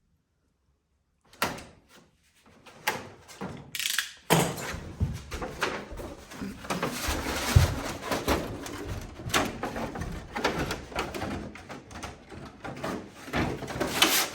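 Rustling, clicks and knocks of a rafter baffle being handled and fitted between rafters. It starts after about a second and a half of silence with a single knock, then becomes a busy, irregular run of handling noise.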